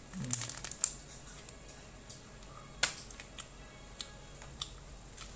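Mouth clicks and smacks from chewing a fridge-hardened, very chewy yogurt gummy candy: about six sharp, irregular clicks. A short low hum from the throat comes right at the start.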